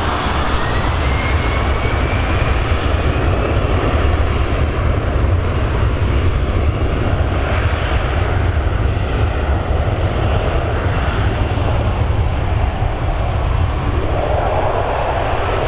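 Jet airliner engines running loud and steady, a heavy low rumble with a thin whine that rises in pitch over the first few seconds.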